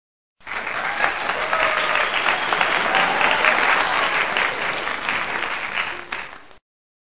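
Crowd applause, a dense clatter of many hands clapping. It starts suddenly about half a second in and is cut off abruptly about a second before the end.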